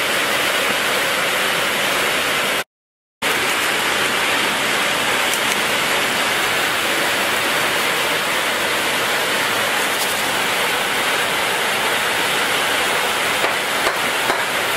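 Steady, loud hissing noise like heavy rain or rushing water, broken once by about half a second of dead silence a little under three seconds in.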